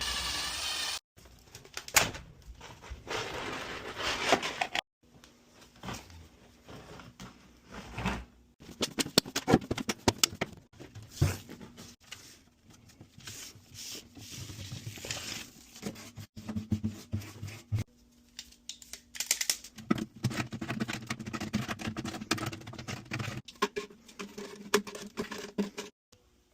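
Hands-on work on a dryer vent: crinkling, tearing and scraping with many sharp clicks and knocks as the flexible transition hose and metal vent pipe are handled, in short stretches that cut off abruptly several times.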